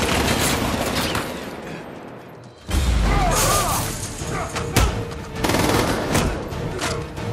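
Action-film soundtrack: a dense rattle of gunfire fading over the first couple of seconds, then a sudden deep hit of score music with sharp impacts struck every second or so.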